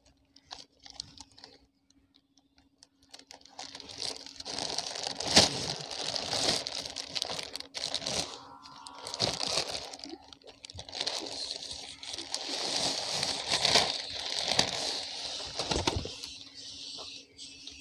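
Thin plastic bags crinkling and rustling in irregular surges as a large outer bag is opened and the small water-filled fish bags inside are handled and set out, starting about three seconds in. A faint steady hum lies underneath.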